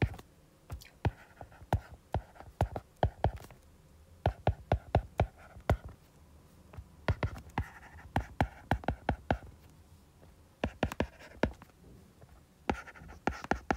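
Stylus writing on a tablet's glass screen: irregular quick taps in clusters, with faint scratching of the pen strokes between them.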